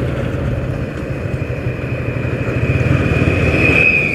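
TVS Apache RTR 160 2V's single-cylinder engine running as the motorcycle rides at low speed, with wind noise on the handlebar microphone. A thin high whine grows louder near the end as a truck passes.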